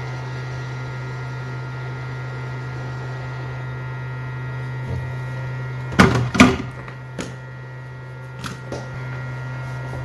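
A steady electrical hum from running bench equipment. About six seconds in there are two sharp clicks close together, tools knocking against the board, and a few lighter clicks follow.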